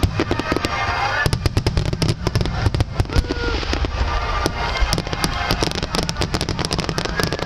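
Aerial fireworks going off in a dense, irregular barrage of sharp bursts and crackling reports over a continuous low rumble.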